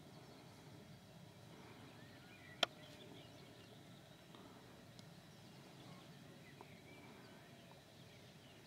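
Quiet countryside ambience: faint, scattered distant birdsong over a low steady hiss, with one sharp click about two and a half seconds in.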